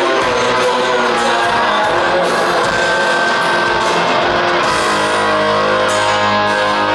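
Rock band playing live: distorted electric guitars holding notes over drums, with repeated cymbal hits.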